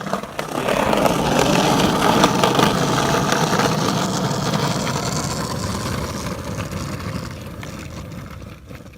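Skateboard wheels rolling on pavement in a steady rumble that swells within the first second, then slowly fades away.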